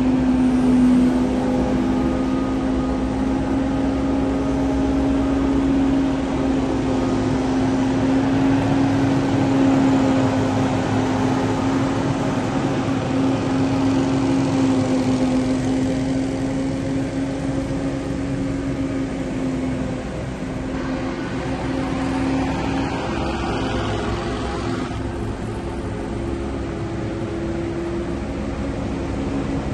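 Small petrol engine of lawn-care equipment running steadily at a constant pitch, with a slight dip in level around two-thirds of the way through.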